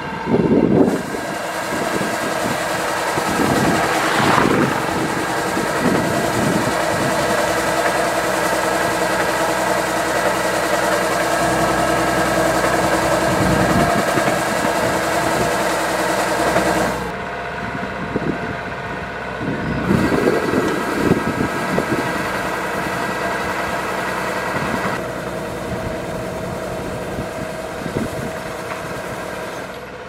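Kubota DC-105X rice combine harvester running steadily, its diesel engine and grain unloading auger working while threshed rice is discharged from the spout into a sack. The high rushing part of the sound drops out for about three seconds a little past halfway, then returns.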